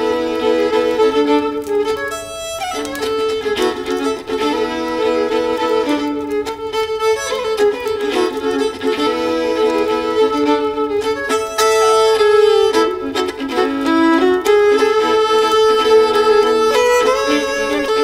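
Three violins playing a tune together in harmony, bowed with a few plucked touches.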